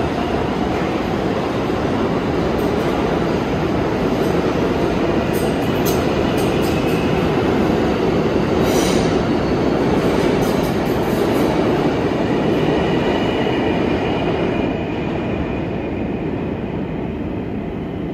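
New York City subway train on the Lexington Avenue line running along the platform: a loud, steady rumble with a few sharp clicks about five to nine seconds in and a faint wheel squeal, easing off near the end.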